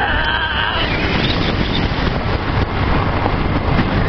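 Honda CG 125 Fan motorcycle's single-cylinder four-stroke engine running steadily under way on a dirt road, through an aftermarket exhaust with its baffle removed. A brief high held tone sounds in the first second.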